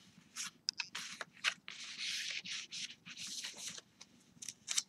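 Paper rustling as hands handle a cardstock tag and turn and smooth the pages of a handmade junk journal: short rustles and light clicks, with longer rustles about two and three seconds in.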